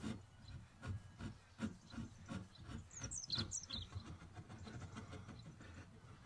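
Soft, regular strokes of a hand file, about three a second, working excess epoxy off an aluminium ferrule on a wooden handle. A small bird chirps several times about three seconds in.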